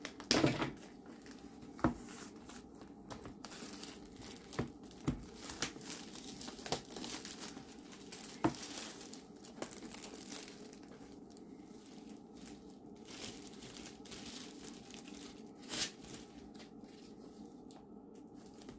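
Clear plastic shrink-wrap being peeled and crumpled off a cardboard box: on-and-off crinkling and tearing with scattered sharp crackles, plus a few louder clicks and knocks as the box is handled.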